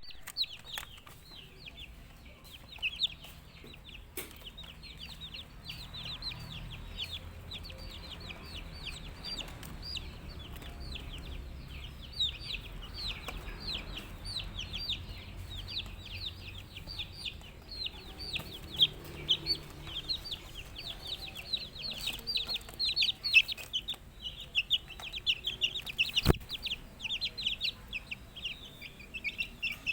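A flock of Ayam Kampung Super chicks peeping continuously: a dense chorus of short, high, downward-sliding cheeps that grows busier in the second half.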